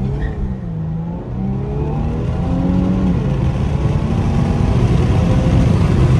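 Infiniti Q50's VR30 3.0-litre twin-turbo V6, fitted with aftermarket lower downpipes, under hard acceleration. The engine pitch climbs and breaks about three seconds in, then the engine grows louder as it pulls again.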